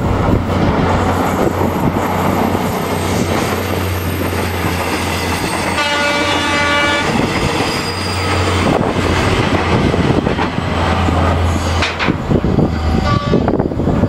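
Diesel passenger train passing close by: engine drone under the clatter of wheels over rail joints. About six seconds in, the horn sounds for a little over a second, and a shorter tone comes near the end.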